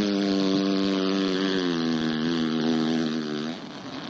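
A person imitating a fart with the mouth: one long drone, its pitch sinking slightly, that stops about three and a half seconds in. Another such sound starts near the end.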